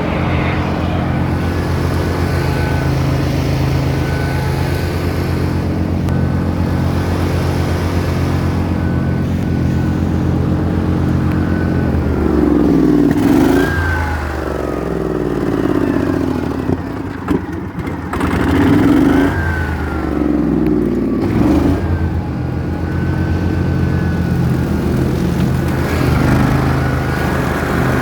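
Engine of a grass-mowing machine running steadily, then rising and falling in speed several times around the middle before settling back to a steady run, with a faint whine that glides along with it.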